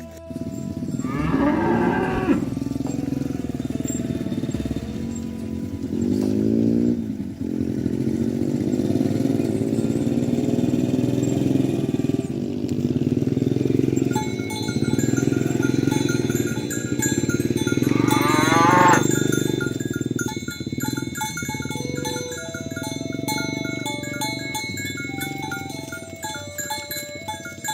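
Cattle mooing, several long calls one after another, over background music with plucked notes.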